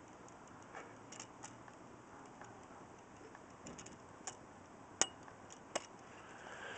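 A few faint, sharp clicks and light taps over low background hiss, the loudest a little after five seconds in and another just before six seconds.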